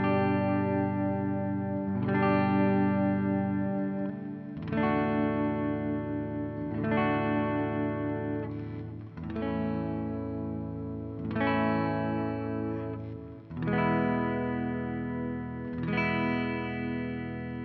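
Squier Showmaster electric guitar on its neck pickup, played clean through a Marshall amp head and recorded straight from the amp's USB output: chords struck about every two seconds and left to ring.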